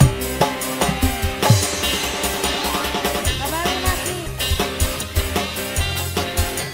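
Instrumental passage of a live dangdut song: drums strike a steady beat under a lead melody with sliding notes, and there is no singing.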